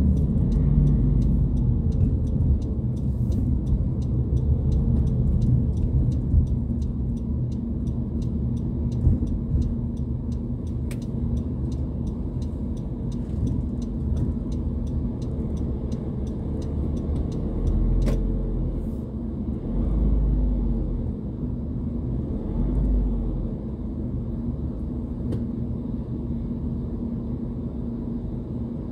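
Car driving, heard from inside the cabin: a steady low rumble of engine and tyre road noise, with a faint fast ticking through the first part.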